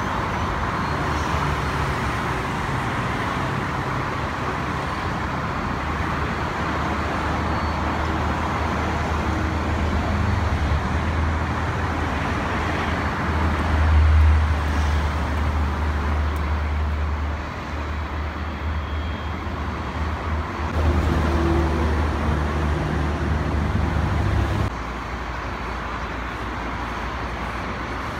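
Distant jet airliner's engines at takeoff power during its takeoff roll: a steady roar over a deep rumble. The deepest part of the rumble drops away suddenly near the end.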